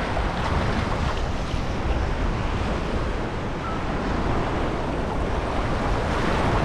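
Shallow beach surf washing and churning steadily, with wind buffeting the microphone as a low rumble.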